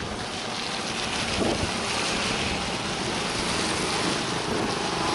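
Steady wind rushing over the microphone of a moving bicycle, mixed with the hiss of tyres on a wet road, growing a little louder after about a second.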